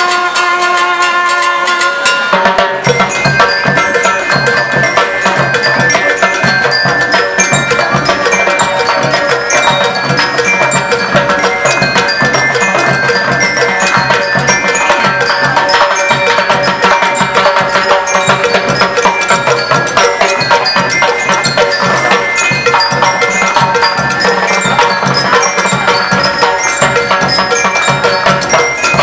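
School rhythm band playing: bell lyres ring out the melody over snare drums, bass drums and a drum kit. A few held notes in the first two seconds give way to a steady, busy beat.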